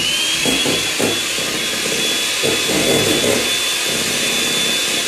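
Electric hand mixer beating egg whites in a stainless steel bowl for a French meringue. Its motor whine climbs slightly in the first second, then holds steady over the whirr of the beaters.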